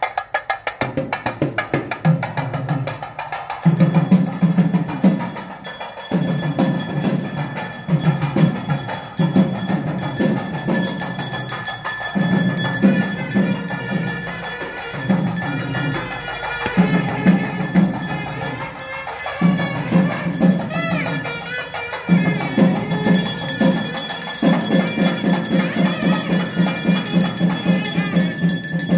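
Traditional percussion music: drums beating a fast rhythm in short phrases, with steady high ringing tones held over it.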